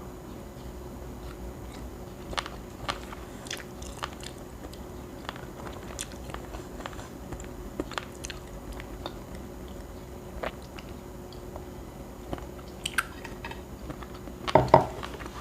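Close-miked chewing and biting of grilled street food, with scattered small wet clicks and smacks from the mouth and a louder bite about a second before the end.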